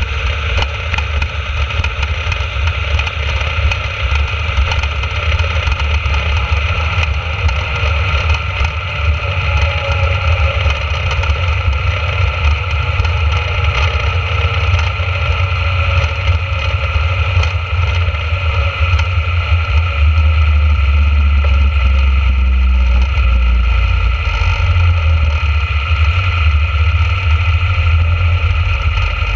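Junior dragster's engine running steadily while the car rolls at low speed, heard from a camera mounted on the car, with a heavy low rumble throughout.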